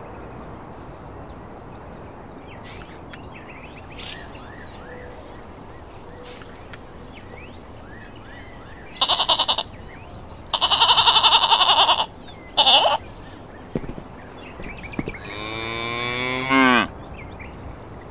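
Sheep bleating, three calls close together about halfway through, then a single long cow moo that swells and cuts off near the end, over faint bird chirps.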